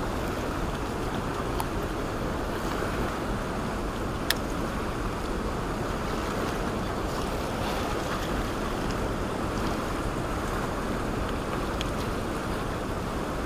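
Steady rushing of whitewater rapids, the river running high through an open dam, with one sharp click about four seconds in.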